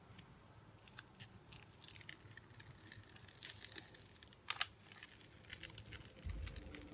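Faint crinkling and crackling of a diamond painting canvas and its protective paper being handled, with a sharper crackle about four and a half seconds in and a low rumble near the end.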